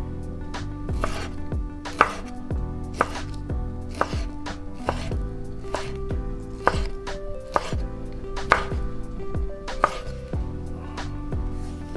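Kitchen knife dicing guanciale (pork cheek) on a cutting board: sharp, uneven knocks of the blade on the board, roughly one a second.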